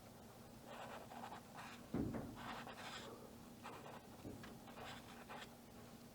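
Faint, scratchy strokes of a pen or marker tip writing a signature on the painting, with one soft knock about two seconds in and a faint steady hum underneath.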